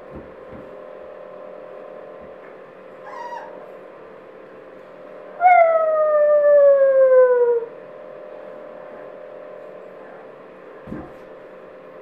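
Boxer puppy giving one long howl, about two seconds long, falling steadily in pitch, about five and a half seconds in; a brief, higher yip comes a couple of seconds before it.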